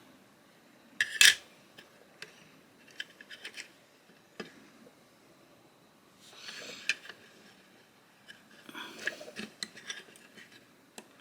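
Parts of a folding knife being taken apart and handled on a work surface: scattered sharp clicks and clacks, the loudest a double clack about a second in, with light rubbing between them.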